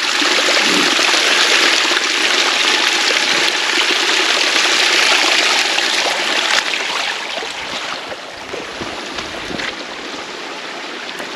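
Rainwater runoff rushing and splashing over rocks in a drainage ditch, a steady flow that grows fainter after about seven seconds.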